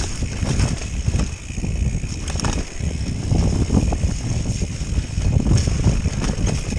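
Mountain bike descending a rough, muddy woodland trail: a continuous low rumble from the tyres, with many quick knocks and rattles as it goes over rocks and roots.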